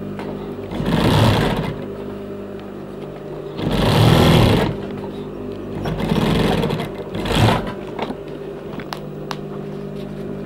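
Industrial sewing machine stitching a jacket pocket welt strip in four short runs, its motor humming steadily between them. A few light clicks near the end.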